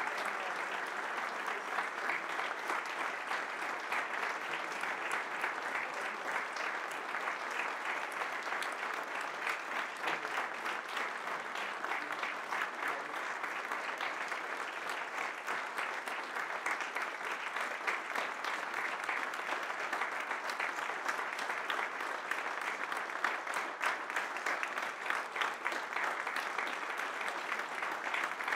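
Long, unbroken applause from an audience, many hands clapping.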